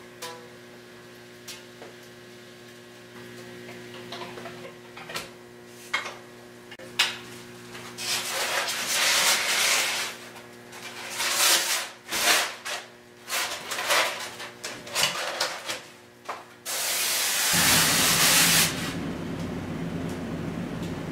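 Steady electrical hum from the hot-wire foam cutter's power supply, with a few faint clicks. About eight seconds in, loud scraping and rubbing as the cut-off slab of polystyrene foam is lifted and handled. Near the end a steady hiss for about two seconds, then a lower steady hum.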